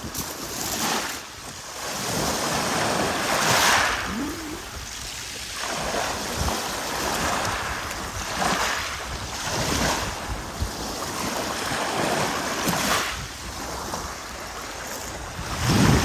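Small sea waves washing up onto a pebble beach and drawing back, swelling every few seconds, with wind buffeting the microphone.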